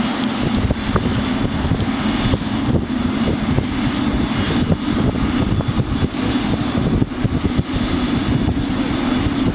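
Boeing 777-300ER's GE90 jet engines running with a steady drone as the airliner rolls down the runway on its take-off roll. Strong wind buffets the microphone, adding a fluttering low rumble and scattered crackles.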